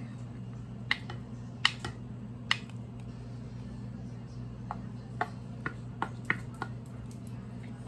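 Light clicks and taps of kitchen utensils against a bowl as chicken is put in for a macaroni salad: three sharper clicks in the first few seconds, then several fainter ones, over a steady low hum.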